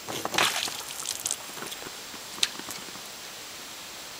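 Close clicks and rustling from handling in a small boat, bunched in the first second and a half, then one sharp click about two and a half seconds in, over a steady faint hiss.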